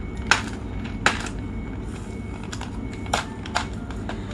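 Small cardboard and plastic packaging of a glucometer's lancets and test strips being opened by hand: four sharp clicks and taps, over a steady low hum.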